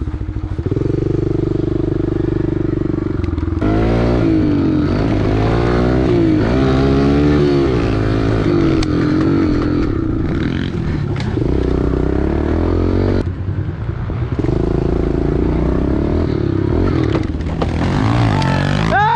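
Small 110 cc four-stroke single-cylinder pit bike engine revving up and down repeatedly as it is ridden, with steadier stretches of running in between.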